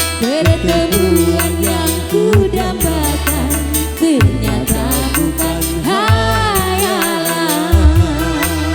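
Live dangdut music playing the instrumental close of a song: a gliding, bending lead melody over a steady bass line and a quick, regular hi-hat beat. Near the end the beat stops and a chord is held.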